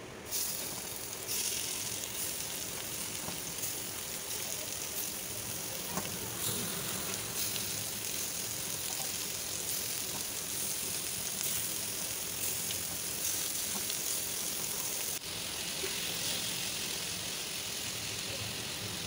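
Marinated chicken pieces frying in hot fat in a pan, a steady sizzle with faint crackles that grows louder about a second in and dips briefly near the end.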